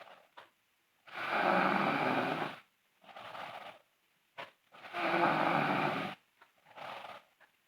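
Sleeping girl snoring loudly: two long snores about three and a half seconds apart, each followed by a shorter, quieter breath, with faint short clicks in the pauses.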